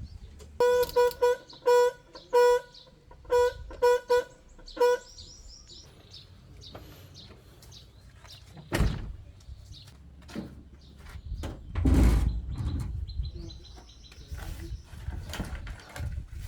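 A vehicle horn tapped in about nine short, uneven honks of one steady tone. After the honks come a single thud and then a louder clatter, with birds chirping in the background.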